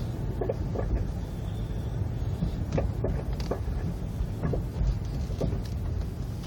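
Nissan Versa making an intermittent clicking noise: about seven short clicks at uneven spacing over the steady low rumble of the running car.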